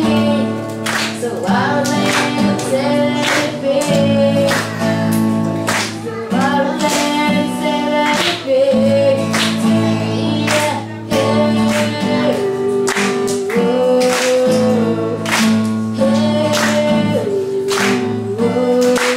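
A young female voice singing a Christian worship song with long held notes, accompanied by steady strumming on an acoustic guitar.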